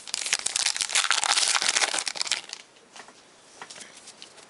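Crinkling and crackling of a baseball card pack wrapper being torn open and handled for about two and a half seconds, then quieter with a few faint clicks.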